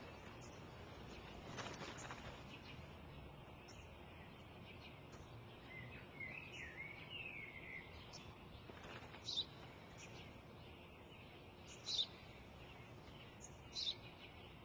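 Sparrow chirping faintly outdoors: single short, sharp chirps about every two seconds in the second half, with a brief warbling run of birdsong around six to eight seconds in, over a soft steady hush of park ambience.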